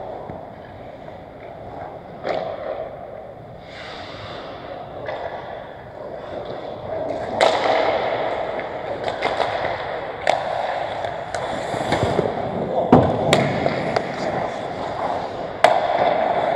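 Pickup ice hockey play: skates scraping and carving on the ice, with a run of sharp clacks of sticks and puck. The heaviest knock comes about 13 seconds in.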